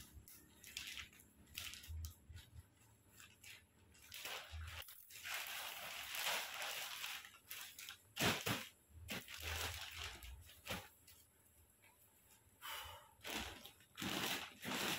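Plastic wrapping of a foam mattress rustling and crinkling in irregular bursts as it is torn open, with a few sharp crackles and one longer rustle around the middle.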